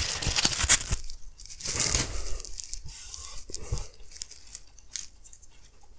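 Styrofoam packing block and plastic wrapping scraped and crinkled as a figurine is unpacked by hand, in a few scratchy bursts over the first four seconds that then die away.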